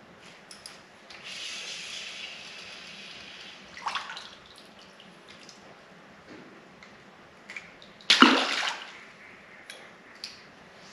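Water splashing as a small crappie is handled at the surface, then a louder splash about eight seconds in as the fish goes back into the water.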